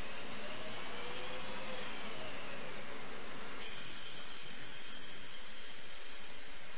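CNC machine running: a steady mechanical hiss with a faint pitch that rises and falls in the first two seconds, and a high-pitched whine that sets in about three and a half seconds in.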